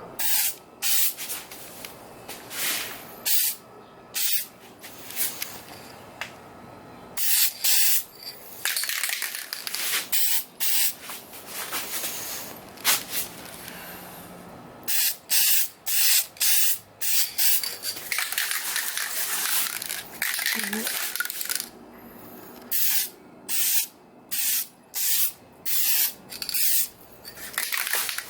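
Aerosol can of Dupli-Color trim and bumper paint spraying a second coat onto plastic trim: a series of short hissing bursts, with a few longer passes of several seconds in the middle.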